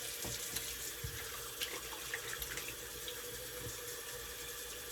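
Water running steadily from a tap into a sink, with a few faint small knocks.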